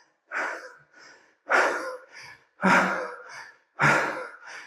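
A person panting hard, out of breath from a dance cardio workout: a heavy breath about once a second, with a shorter, fainter breath between each.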